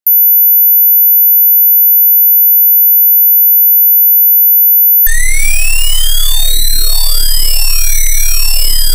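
A loud, very high-pitched steady electronic tone cuts in suddenly out of silence. About five seconds in, a harsh synthesized din joins it: many tones sweeping up and down in repeating arcs over a low buzz.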